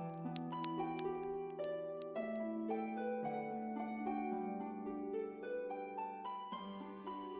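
Background music of plucked harp-like notes in a gentle melody.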